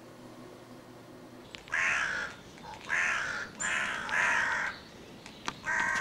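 Crows cawing: about five separate caws in a loose series, starting about a second and a half in.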